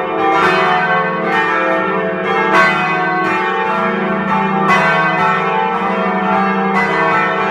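Church bells pealing: several bells struck in an irregular sequence, each strike ringing on into the next over a steady low hum.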